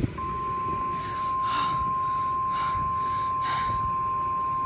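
Emergency Alert System alert tone: a single steady tone near 1 kHz, held at constant level, the attention signal that opens a severe thunderstorm warning broadcast.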